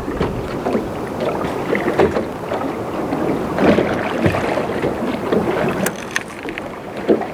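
Water lapping and slapping irregularly against the hull of a small open boat, with wind buffeting the microphone.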